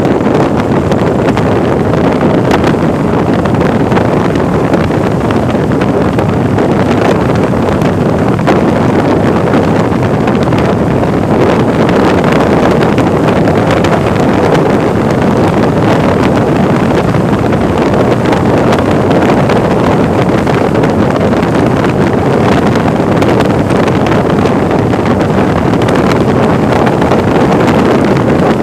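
Loud, steady wind rush buffeting the microphone while riding a Vespa 300 scooter at highway speed, with no clear engine note standing out.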